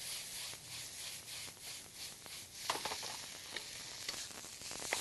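Fried rice sizzling in a hot wok as it is stirred and tossed with a spatula, with a run of scraping strokes and a few light metal clinks after the middle.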